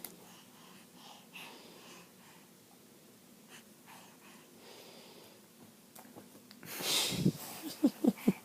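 Seven-month-old baby mostly quiet, then about seven seconds in a noisy breath followed by a few short squeaky little sounds near the end.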